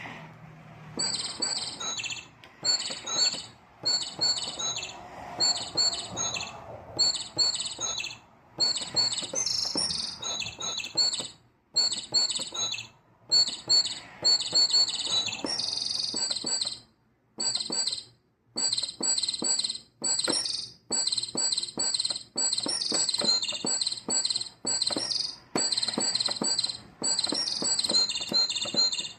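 Sampled bird-chirp and cricket-chirp sound effects triggered from electronic keyboard keys, played as short rhythmic bursts of high tweets with brief pauses between phrases.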